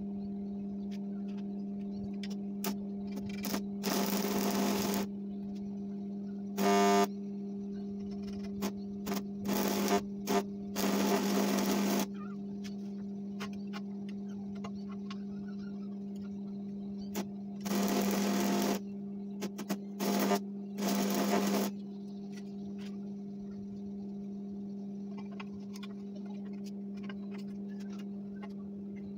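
Electric arc welder humming steadily, broken by about seven short bursts of crackling arc, each around a second long or less, as tack welds are struck on steel.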